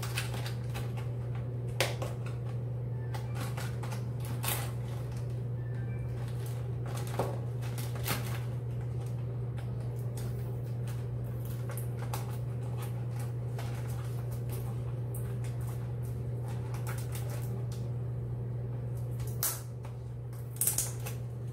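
Plastic packet crinkling and crackling in short, scattered bursts as it is pulled at and worked open by hand, over a steady low hum.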